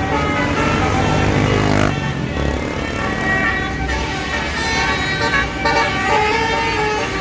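Bus basuri horn sounding a multi-tone telolet tune, several notes at once that change pitch in steps, over the rumble of road traffic.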